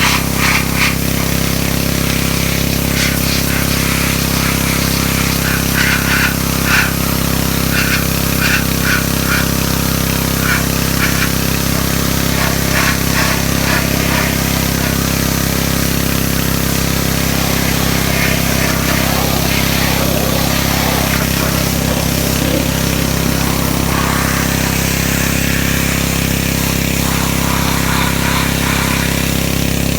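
Pressure washer's small engine running steadily at constant speed, with the hiss of the high-pressure water spray over it.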